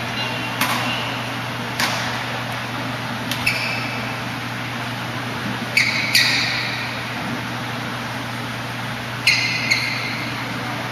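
Badminton hall ambience between rallies: a steady low hum, with scattered sharp taps and a few short squeaks of court shoes on the court mat, the loudest around the middle and again near the end.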